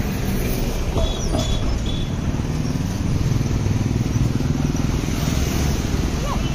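Steady low rumble of road traffic, with no single vehicle standing out.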